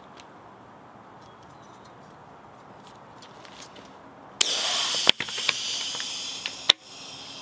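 CO2 cartridge inflator bursting into a loud hiss about four seconds in as it fills a tubeless mountain-bike tire, with a few sharp pops as the tire bead snaps onto the rim. The hiss drops to a quieter hiss near the end as the cartridge empties.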